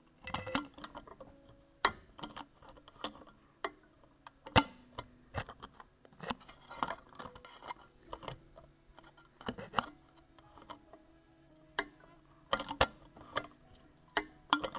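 A standard blind (pop) rivet being set by hand in a sheet of aluminum: a string of irregular metallic clicks and clacks from the riveting tool and parts, with one sharper snap about four and a half seconds in.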